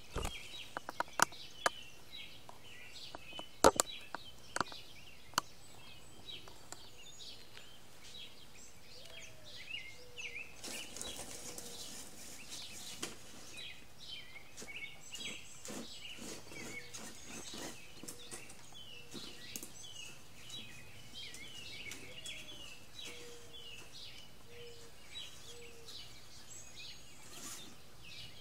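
Outdoor background of birds chirping with many short repeated calls. A handful of sharp, loud clicks come in the first five seconds, and there is a brief rustling hiss about midway.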